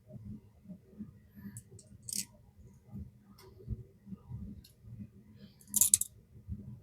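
Small metal parts of a disassembled telegraph key being handled and set down on a tabletop: scattered light clicks and taps, with a louder clink about two seconds in and the loudest clatter near the end.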